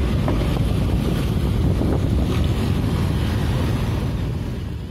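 Wind buffeting the microphone of a camera carried on a moving motorcycle, over the steady rumble of the ride and the surrounding traffic; it fades out near the end.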